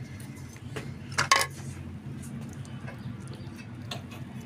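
A spoon clinking and scraping against a plate and cooking pot as chicken curry is spooned over a layer of rice: two sharp clinks close together a little over a second in, then a few softer taps, over a steady low hum.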